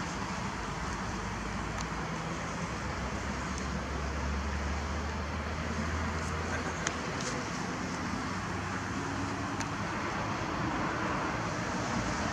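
Steady road traffic noise, with a low engine rumble swelling about four seconds in and a few faint ticks.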